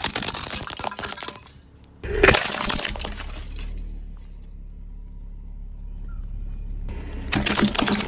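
Hard plastic toys and household items cracking and crunching under a car tyre: crackling at the start, a loud snap about two seconds in followed by more crunching, then a low steady rumble before more cracking near the end.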